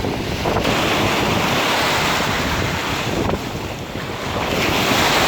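Storm surf on the Black Sea breaking and washing ashore in a steady roar, with wind buffeting the microphone; the surf swells near the start and again near the end.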